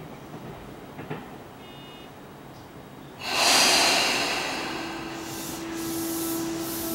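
Electric commuter train's air brakes releasing with a sudden loud hiss that fades over about two seconds, after a short faint beep; a steady motor whine then sets in as the train begins to pull away.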